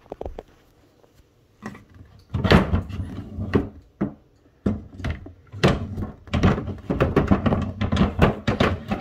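A dresser drawer being worked into place in a crib-and-changer's frame: a run of uneven knocks and thuds, starting about two seconds in and going on to the end.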